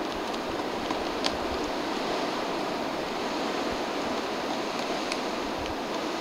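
Steady rushing background noise with a few sharp single taps, the clearest just over a second in and another about five seconds in: a male Magellanic woodpecker pecking at a tree trunk.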